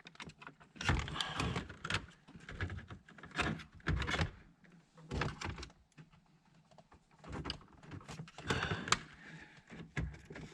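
Hands working plastic dash parts and an old wiring plug back into place: irregular clicks, scrapes and rustles, with short pauses between.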